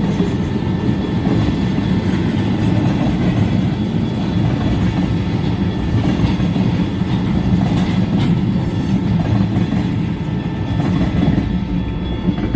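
Freight cars of an ethanol train rolling past: a steady, loud rumble of steel wheels on the rails with some clacking over the joints.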